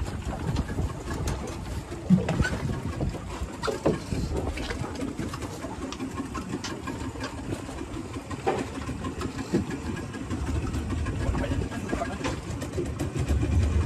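Small fishing boat under way at trolling speed: a low outboard motor rumble with water and wind noise, broken by a few scattered knocks, the sharpest about two seconds in. The low rumble grows louder near the end.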